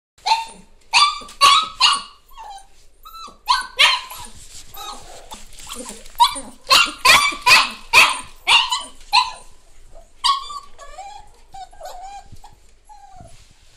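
Several puppies yelping and barking in short, high-pitched yips that come in quick runs of four to seven, with softer whining near the end.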